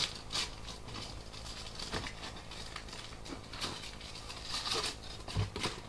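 Aluminium foil being torn off and crinkled: irregular crackling rustles in small bursts, strongest near the start and again around four to five seconds in.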